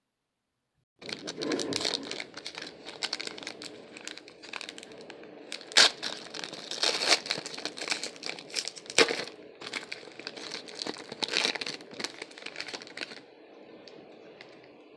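A 2019 Donruss trading-card pack wrapper being torn open and crinkled by hand, starting about a second in, with sharp crackles and several louder rips. Near the end it drops to a soft rustle as the cards are handled.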